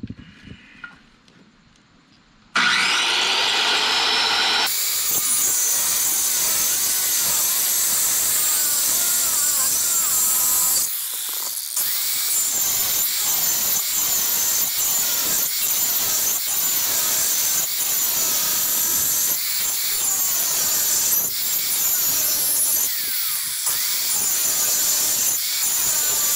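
Corded Skilsaw circular saw starting up about two and a half seconds in, then cutting a grid of shallow kerfs into the end grain of a log, the motor's pitch sagging and recovering again and again as the blade bites in.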